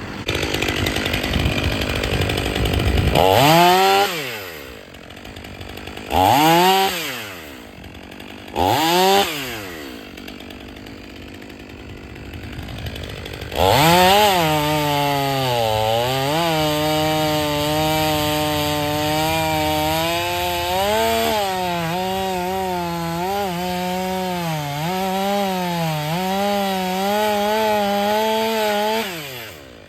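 Stihl 500i two-stroke chainsaw idling, then blipped to high revs three times in short bursts. It is then held at full throttle through a long cut of about fifteen seconds, its pitch sagging and recovering as the chain bites into the wood, before it drops off near the end.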